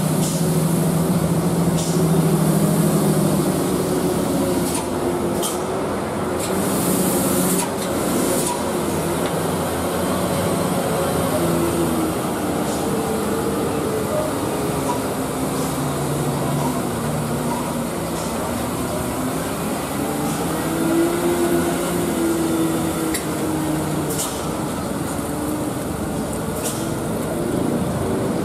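Road traffic on a steep mountain road: several vehicle engines, trucks among them, running with revs rising and falling as they pass and climb, with cars and motorcycles going by and a few short sharp clicks.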